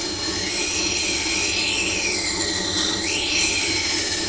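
Knife blade being ground on a motor-driven sharpening stone: a steady grinding hiss over a low motor hum, its pitch sweeping up and down as the blade is drawn back and forth across the stone. It stops at the end.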